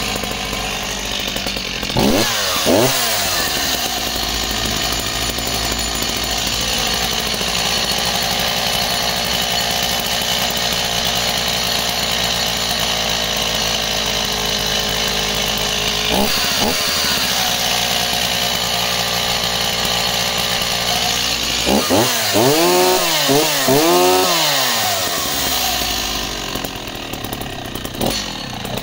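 Stihl 024 AV two-stroke chainsaw idling steadily, blipped up to high revs briefly about two seconds in and again midway, then revved up and down several times in quick succession near the end before settling back to idle. It starts and runs cleanly and pulls well at the top end, on what are believed to be its factory carburettor needle settings.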